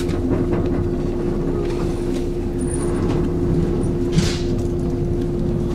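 JNR 189-series electric train heard from inside the carriage as it pulls out of the station: steady running noise with a constant hum, and a brief hiss about four seconds in.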